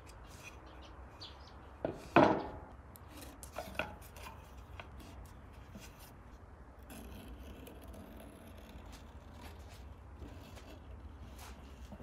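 A solid walnut plank set down on the lathe's metal bed with a sharp knock about two seconds in, among lighter taps and handling clicks. Later, faint scratching as a pen marks the wood along a steel ruler.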